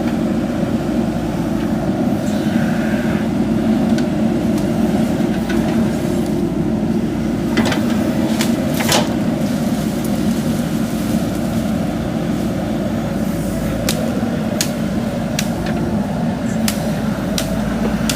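JCB 3DX backhoe loader's diesel engine running steadily while working, with sharp knocks or clanks now and then, coming more often in the last few seconds.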